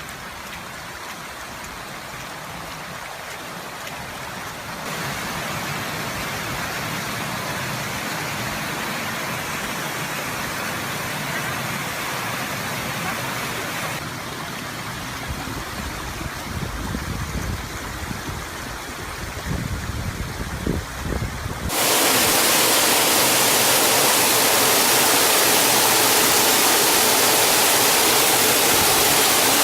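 Rushing water of a river swollen by typhoon rain: a steady roar that changes level abruptly a few times and grows much louder and harsher about two-thirds of the way in.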